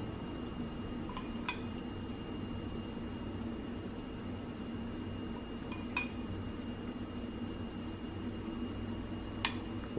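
Metal spoon clinking against a plate four times as mojo sauce is spooned over food, over the steady sound of heavy rain falling outside.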